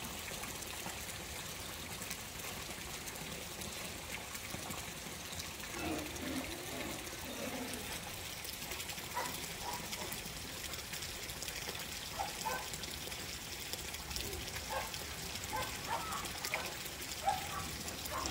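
Steady sound of running water, joined from about nine seconds in by short, separate high calls that come more often near the end.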